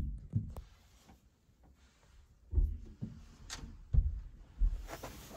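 A few dull thumps and knocks at irregular intervals, with one sharp click about three and a half seconds in.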